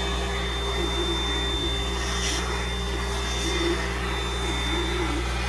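Shop vacuum running steadily with a constant high whine, its hose nozzle sucking up milling chips and dust from a freshly cut pocket, with a few brief rattles of debris being drawn in.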